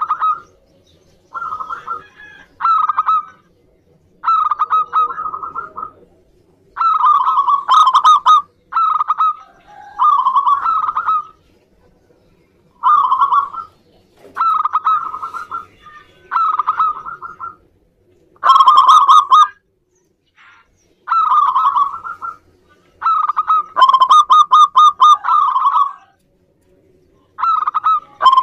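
Zebra dove (perkutut) cooing: a run of short, rapidly rattling coo phrases, each lasting about a second, repeated every second or two with brief pauses between them.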